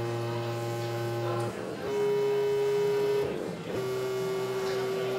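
Synthesized electronic tones from an interactive media installation. Each steady buzzy note is held for about two seconds over a low hum, then breaks off and steps to a new pitch, three notes in all.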